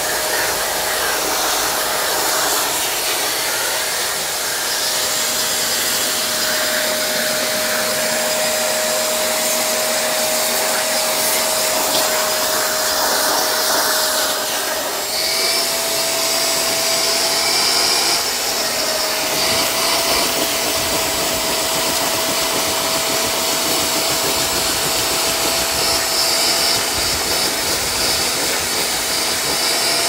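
Wet-pickup vacuum's motor running steadily with a high whine over a rushing hiss of suction, drawing water from a soaked rug. The pitch wavers briefly about halfway through as the load on the nozzle changes.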